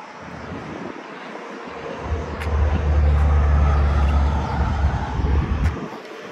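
A vehicle passing on a highway, swelling about two seconds in and fading near the end, over a heavy low rumble of wind buffeting the microphone.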